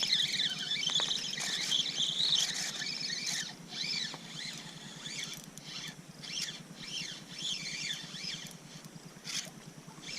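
Spinning reel being cranked against a hooked smallmouth bass on a drop-shot rig, giving a squealing whir that rises and falls over and over as the handle turns. It is loudest in the first few seconds, then steadies and grows fainter.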